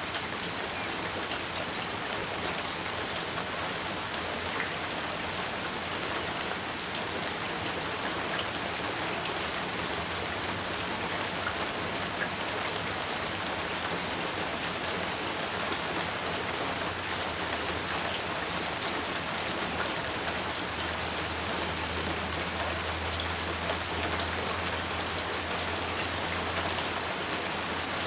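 Steady rain falling: an even hiss with scattered sharp ticks from individual drops.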